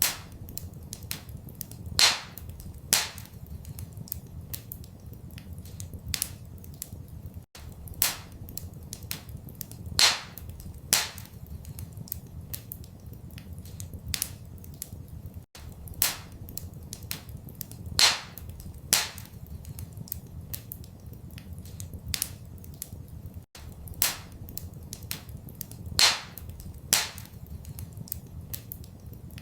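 Wood fire crackling in a fireplace: irregular sharp snaps and pops over a steady low rumble. The same pattern of pops repeats about every eight seconds.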